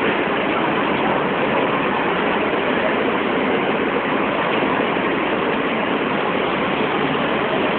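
Steady, loud background hubbub with no distinct events standing out.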